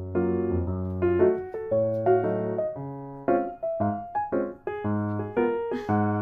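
Background music played on piano-like keyboard: a tune of short notes over a steady low bass line.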